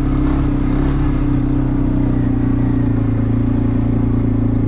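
ATV (quad bike) engine running at a steady, even pitch.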